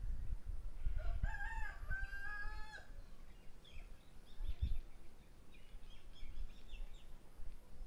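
A rooster crowing once: a single long call of about two seconds, starting about a second in, followed later by fainter, shorter bird calls.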